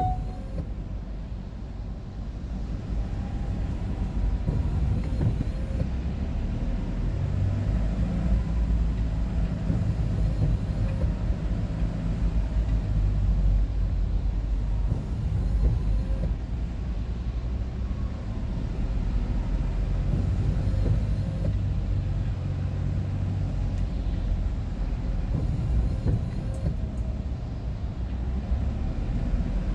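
A vehicle being driven, with the steady low rumble of its engine and tyres on the road.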